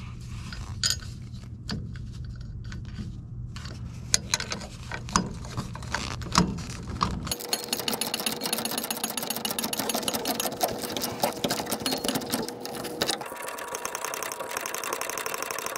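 Metal clinks of a nut and wrench being fitted, then, about seven seconds in, a ratcheting wrench clicking rapidly and steadily as the lock nut on a Timbren bump stop's mounting bolt is run down tight.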